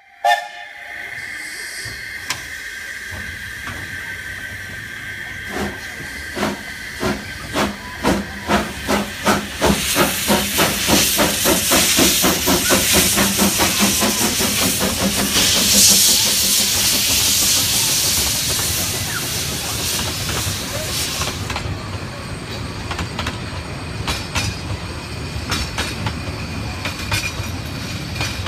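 Double-headed narrow-gauge steam tank locomotives starting a passenger train: a short whistle at the start, then exhaust chuffs that quicken as the train gathers speed, with loud hissing of steam from the cylinder drain cocks for several seconds. Near the end the coaches roll past with wheel clatter.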